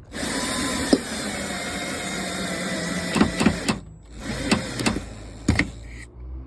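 Plastic interior trim panel being pried off a 2002 Chevy Trailblazer with a putty knife: a continuous scraping, creaking rasp for about three and a half seconds. Then several sharp clicks and snaps as the panel's retaining clips let go.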